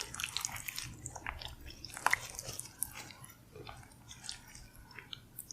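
Close-miked chewing and biting of food: scattered small clicks and crackles from the mouth, growing fainter toward the end.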